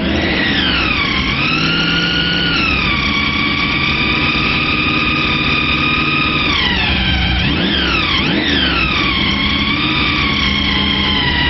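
A siren wailing, its pitch gliding slowly down and up and holding for a few seconds at a time, with two quick up-and-down sweeps about eight seconds in, over a steady low rumble.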